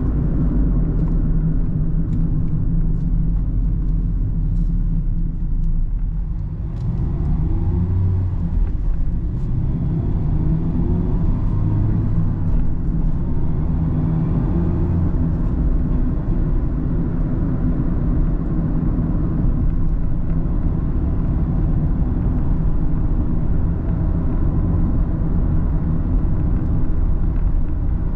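Mazda Roadster (ND) driving, heard from the car: steady engine and road rumble. About seven to twelve seconds in, the engine note climbs in pitch a few times as the car accelerates.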